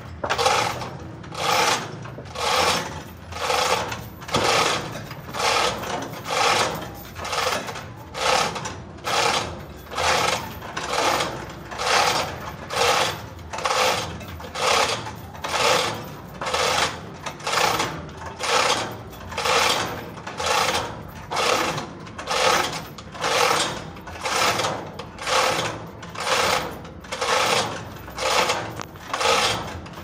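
Sawmill saw cutting through a large trembesi (rain tree) log, the cutting noise swelling and fading in a steady rhythm about once a second over a low machine hum.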